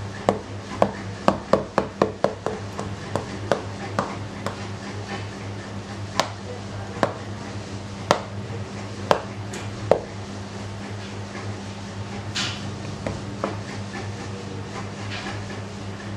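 A run of sharp clicks and taps of a utensil against a pan or bowl, about four a second at first, then slower and more spaced out, stopping about ten seconds in. A steady low hum runs underneath.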